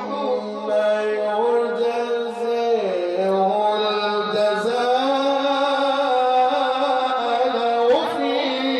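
A male Quran reciter's voice chanting in the melodic, drawn-out mujawwad style, holding one long ornamented phrase whose pitch wavers, dips about three seconds in and climbs near the end.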